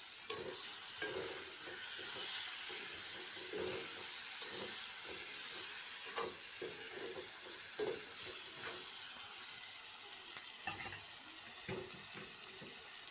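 Chicken masala with chopped tomatoes sizzling in hot oil in a metal kadai while being stirred, a steady frying hiss with irregular scrapes of the spoon through the pan and a few sharp knocks against its side.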